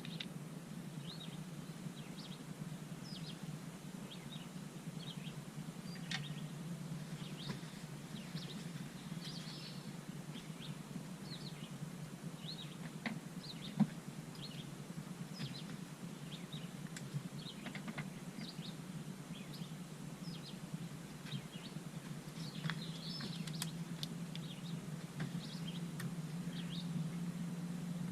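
Songbirds chirping with many short, scattered calls over a low steady hum, and a single sharp click about halfway through.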